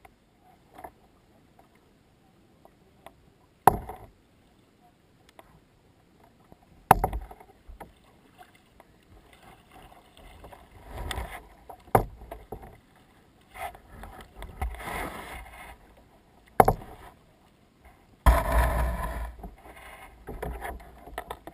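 Kayak being paddled in to shore: a few sharp knocks, likely the paddle striking the hull where the camera is mounted, and paddle splashes, then near the end a loud scraping rush as the hull runs up onto the bank and grinds to a stop.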